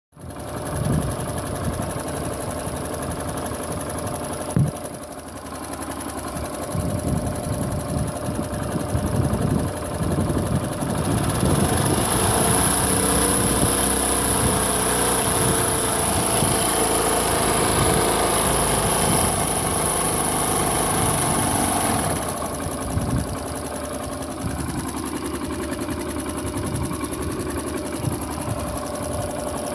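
Honda Pop 110i's small single-cylinder engine running at idle, held at higher revs for about ten seconds in the middle and then settling back to idle, with a sharp knock about five seconds in. The owner complains of an abnormal noise in the engine.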